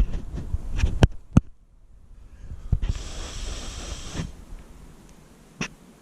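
Close-up handling noise with a couple of sharp knocks, then after a short pause a long breathy puff of air lasting about a second, and a single click near the end.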